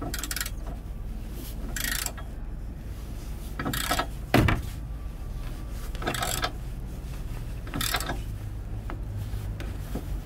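Hand ratchet with a 24 mm socket tightening the bolt of a steel anti-rattle hitch clamp: a short burst of ratchet clicking with each swing, repeating about every one and a half to two seconds, with a sharper knock about four seconds in. The bolt is being drawn tight to take the play out of the joint between hitch receiver and bike rack.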